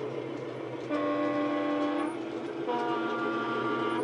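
Class 73 locomotive's two-tone horn played by a DCC sound decoder through a small EM1 speaker in an OO-gauge model: a higher note for about a second, then a lower note, over a steady engine hum.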